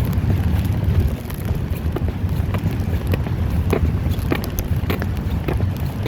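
Wind buffeting the microphone, a steady low rumble, with scattered small clicks.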